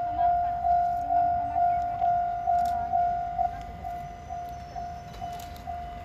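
Japanese level-crossing warning bell ringing, a clear repeated tone at about two strokes a second, as the crossing barriers come down. It drops noticeably in volume a little past halfway.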